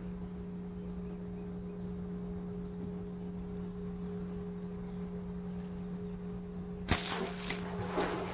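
Steady low hum, then about seven seconds in a sharp crack as the bow is shot and the arrow strikes a bighead carp in the water. A second of splashing and commotion follows.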